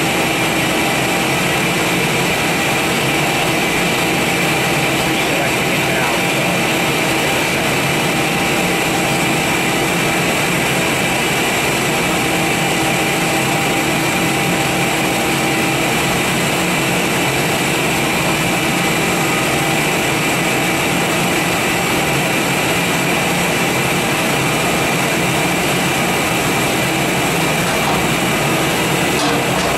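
Giddings & Lewis 84 CNC vertical turning lathe running under power: a steady machine drone with a constant hum and a high whine.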